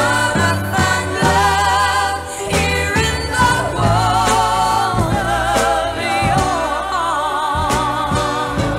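Soul record played from an acetate disc: sung vocals with heavy vibrato over a steady bass line and regular drum hits.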